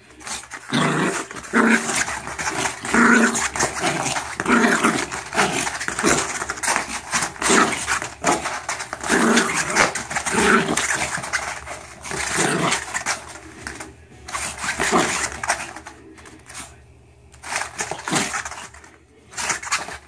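Small dog growling in play, in short repeated bursts about once a second, thinning out near the end, with sharp clicks and scuffs among them.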